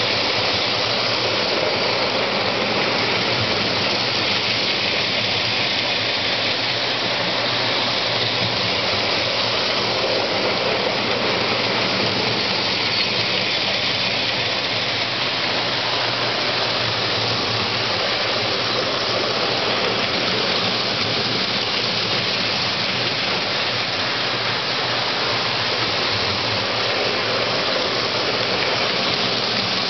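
Postwar Lionel 675 steam locomotives running on O27 tinplate track: a steady rushing rumble of the motors and wheels on the tin rails, with a low hum underneath.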